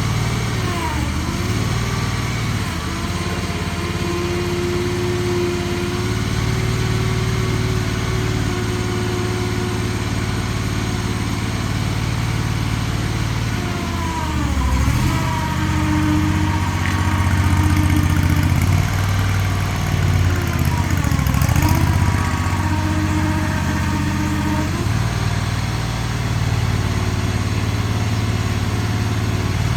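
AGT Industrial LRT23 compact skid steer's engine running steadily. About halfway through, and again some seconds later, the engine pitch dips briefly and recovers, and it runs a little louder in between.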